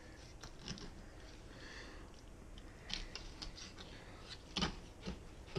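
Fillet knife cutting into a walleye behind the gill plate, pressed down through scales and bone. It makes scattered faint crunches and clicks, the loudest near the end.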